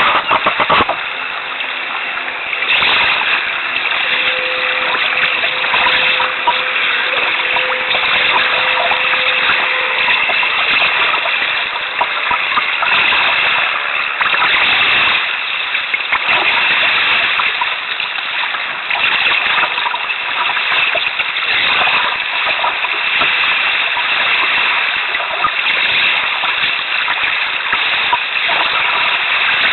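Choppy seawater splashing and rushing around a canoe at water level: a loud, steady wash of water noise broken by many short splashes.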